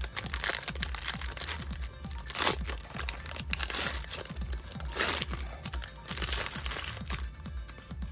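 Foil trading-card pack wrapper from a 2023 Bowman Draft pack crinkling and tearing as it is ripped open by hand, in several loud crackles a second or two apart. Background music with a low beat runs underneath.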